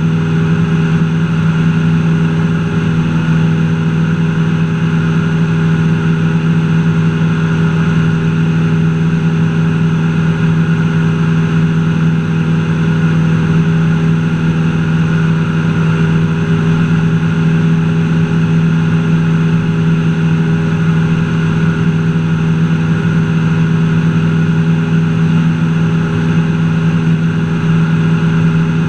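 Cessna 172's piston engine and propeller running at a steady, unchanging pitch in flight, heard from inside the cabin.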